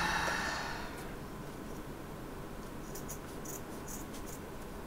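Scissors cutting punch needle fabric: a brief rustle of the cloth being handled at the start, then a run of faint, quick snips about three seconds in.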